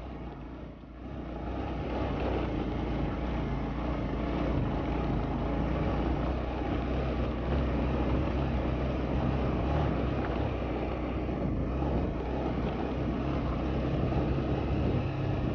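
Motorcycle engine running steadily under way on a rough off-road track, with a low drone and road and wind noise. It picks up about a second in.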